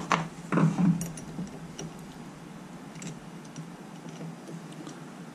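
Hand tools clicking and tapping on a car battery's terminal clamp: a couple of sharper knocks in the first second, then scattered light ticks.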